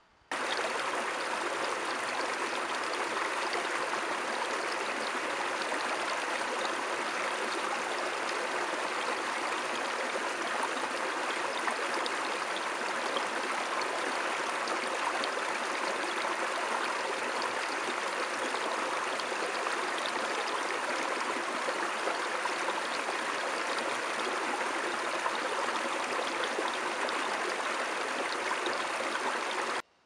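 Small forest stream running over rocks in a little cascade: a steady rush and splash of water that starts suddenly just after the beginning and cuts off abruptly near the end.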